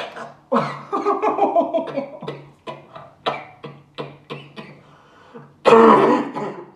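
Laughter in a run of short bursts, then near the end a loud, strained gag from a man retching into a napkin at the taste of raw crab sushi.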